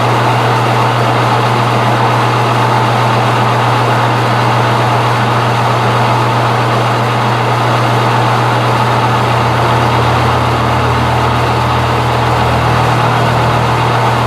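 Metal lathe running at 300 RPM: a steady motor and gear hum over a constant mechanical whir. A lower hum joins about nine seconds in.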